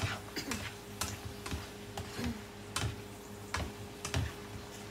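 Black plastic slotted spatula tapping and scraping against a non-stick frying pan while stirring a stir-fry, in irregular sharp clicks about one to two a second.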